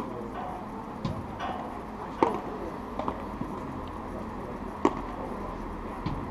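A padel rally: sharp pops of the ball being hit, about five of them at roughly one-second intervals, the loudest about two seconds in. A low murmur of spectators runs underneath.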